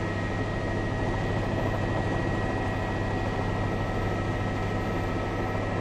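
Helicopter running steadily: an even drone with a strong low hum and a thin, high steady whine.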